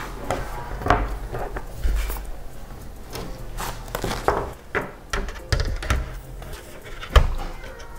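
Hard-shell laptop case pieces and a MacBook Pro being handled on a table: a run of irregular plastic clicks, taps and knocks, with the loudest knock about seven seconds in.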